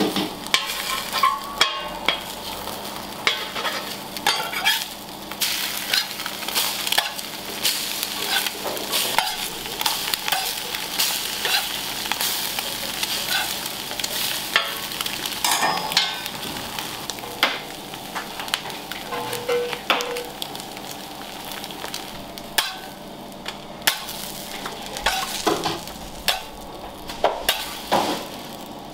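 Food frying in a hot pan: a steady sizzle, with a metal utensil knocking and scraping against the pan many times.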